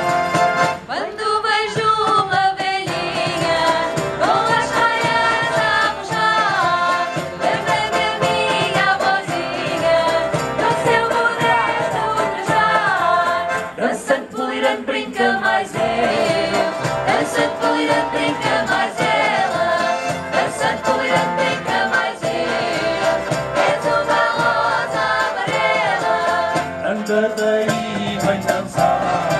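Live folk group performance: several women singing together at microphones over a keyboard and guitars.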